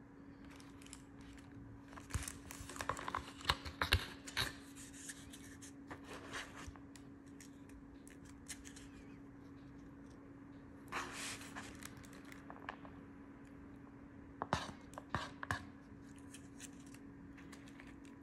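Plastic bag crinkling and a paper lunch box being handled and opened, then a plastic spoon scraping and stirring through fried rice in the box. The crackles come in short bursts, busiest in the first few seconds, over a faint steady hum.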